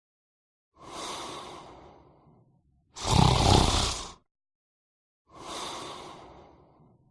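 A person snoring in a slow, steady rhythm. There is one loud snore of about a second in the middle, with a softer breath that fades away on either side of it.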